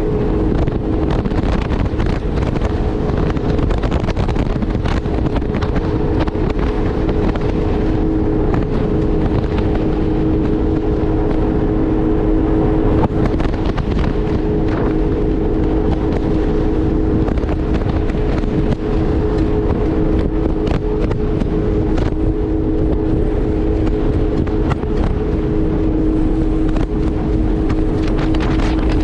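Jet ski engine running steadily at speed, a held even whine, under heavy wind buffeting on the microphone.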